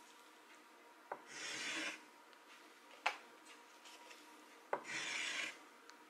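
A pastel stick drawn across a painted panel in two straight strokes, each a short scratchy rub lasting under a second and starting with a tap as the stick touches down. A sharp click falls between the two strokes.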